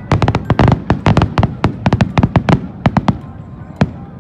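Fireworks bursting in rapid succession, many sharp bangs close together that thin out about three seconds in, with one last bang near the end.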